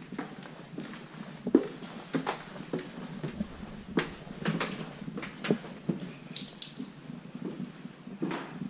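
Footsteps climbing old wooden stairs and crossing a bare wooden floor: irregular knocks about a second apart, the loudest about a second and a half in.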